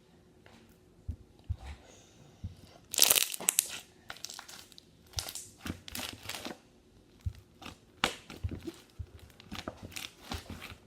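Slime being squished and pressed by hand, giving irregular clusters of crackling clicks, loudest about three seconds in.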